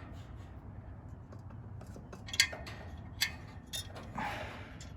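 A few sharp metallic clicks and a short scrape as push-on wire terminals are worked off a compressor's terminal posts, over a low steady hum.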